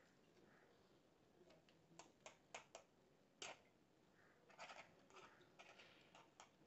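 Faint, irregular clicks and light scrapes of a fork against a nonstick pan as instant noodles are stirred and pulled apart in hot water, in two loose clusters starting about two seconds in.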